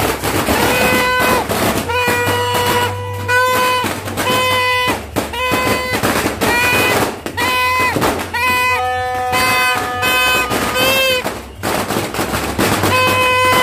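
Torotot New Year noisemaker horns blown in repeated buzzy blasts of about a second each, mostly on one steady pitch, with a horn on a different pitch joining about two-thirds of the way through. Firecrackers pop sharply throughout.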